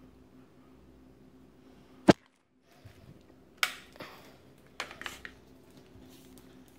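A sharp click about two seconds in, followed by a moment of dead silence, then a few knocks and clatters of things being handled, over a faint steady hum.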